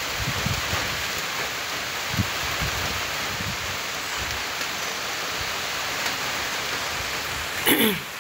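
Steady rain falling onto a flat concrete rooftop and splashing into the standing water on it. Just before the end there is a brief, louder sound that drops in pitch.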